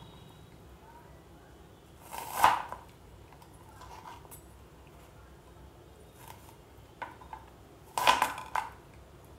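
Kitchen knife cutting through pear flesh and knocking on a wooden cutting board in a few separate strokes. The loudest comes a couple of seconds in, and a quick cluster of knocks comes near the end.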